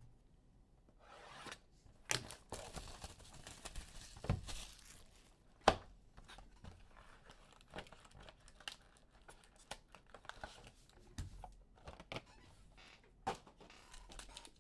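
Panini Prizm football hobby packs being torn open by hand: foil wrappers tearing and crinkling, with scattered sharp clicks and snaps of handling.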